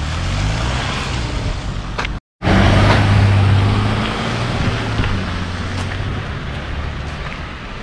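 A car's engine and tyres on a wet, slushy street as an SUV drives close past, with a steady low engine hum. The sound cuts out for a moment about two seconds in, then the engine hum comes back louder and slowly fades.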